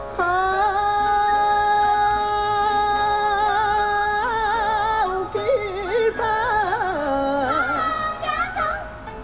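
Background music: a singing voice holds one long steady note, then breaks into quick wavering ornamented turns about five seconds in.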